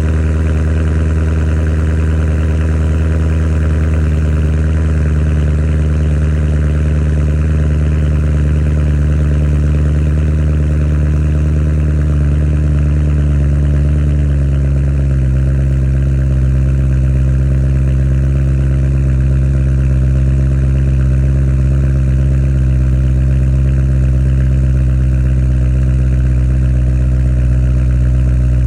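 BMW E90 M3's S65 V8 idling through a stainless axle-back valved exhaust, steady and even. About halfway through, the idle steps down slightly in pitch, as a cold-start fast idle settles.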